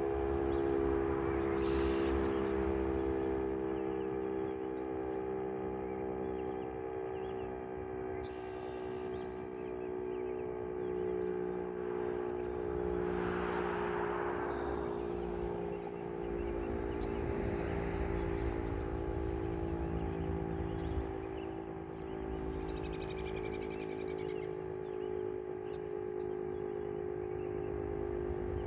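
Federal Signal STH-10 electromechanical fire siren sounding a steady, held tone at full speed during a test, loud and even with its pitch drifting slightly lower near the end.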